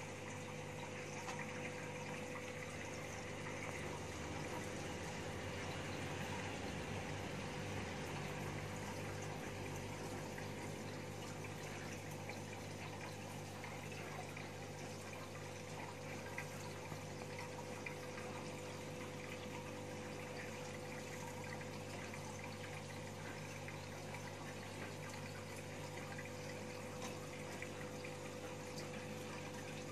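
Aquarium filter pump running: a steady rush of moving water over a steady low hum.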